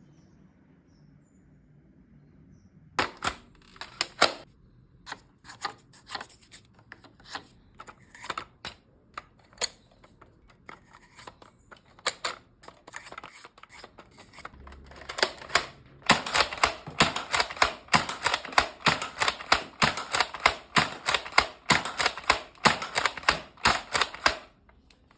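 Sharp plastic clicks and snaps from a Nerf dart blaster being worked and fired: scattered at first, then a fast run of about four a second over the last nine seconds.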